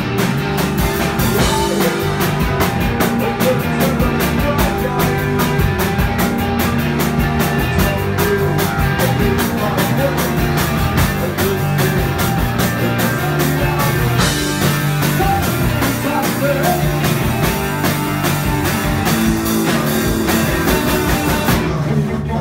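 Live rock band playing: electric guitar, bass guitar and drum kit, with a singer at the microphone. The cymbals and high end thin out shortly before the end while the band plays on.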